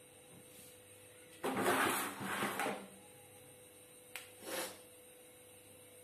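A woman's breathy nasal sounds as she tries to provoke a sneeze that doesn't come: a longer, loud breath about a second and a half in, then a small click and a short breath near the end.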